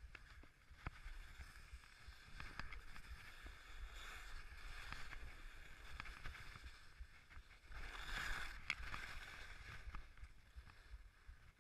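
Skis sliding and turning on snow: a hissing scrape that swells and fades with the turns, loudest about eight seconds in, with a few sharp clicks and a low rumble underneath.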